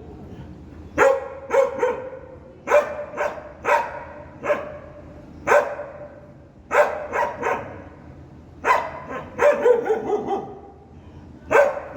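A dog barking in short runs of two to four barks, with pauses of about a second between runs.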